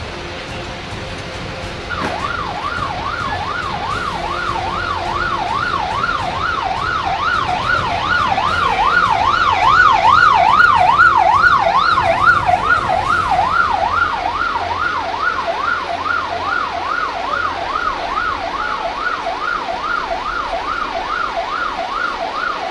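Emergency vehicle siren in a fast up-and-down yelp, about two sweeps a second, starting about two seconds in. It grows louder toward the middle as it approaches, then eases off a little.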